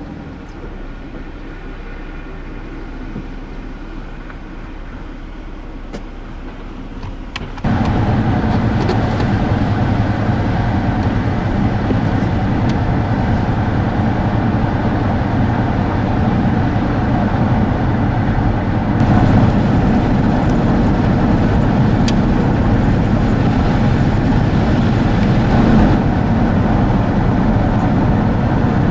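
Car driving, with steady engine and road noise. About seven seconds in, the noise jumps suddenly much louder and fuller, and it stays that way.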